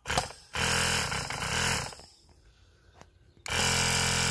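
Mercedes-Benz W211 Airmatic air-suspension compressor, powered straight from test leads, running with a steady electric-motor buzz for about a second and a half. It stops with a click, then starts again about three and a half seconds in and keeps running.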